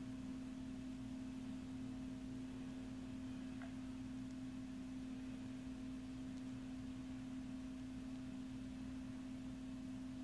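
A steady low hum at one unchanging pitch, with a fainter higher tone above it over a soft hiss.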